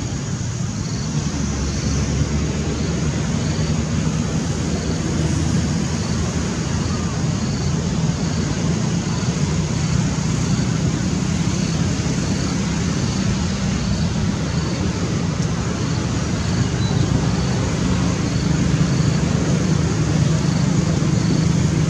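Steady low rumble of road traffic and engines running, with a faint high pulse repeating about every two-thirds of a second.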